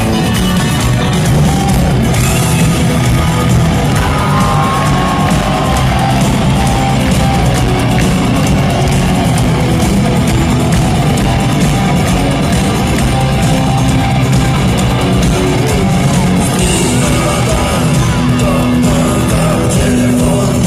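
Rock band playing live in a concert arena, with a sung vocal line over loud, steady guitars and drums.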